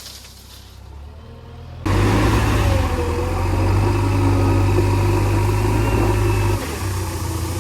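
Heavy diesel engine running steadily under work, cutting in abruptly and loud about two seconds in after a quieter stretch. A short whine bends down in pitch around the middle, and the engine note drops and eases near the end.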